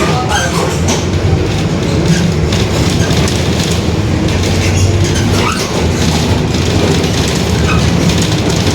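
Inside a moving Mercedes-Benz OF-1721 city bus: the front-mounted four-cylinder diesel runs steadily with a low drone and the rear differential growls, under a constant clatter of rattles from the body and fittings.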